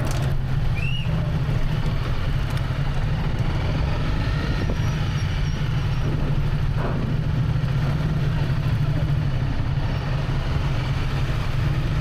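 Steady drone of a Honda CRF250L's single-cylinder engine under way on the road, mixed with wind and road noise.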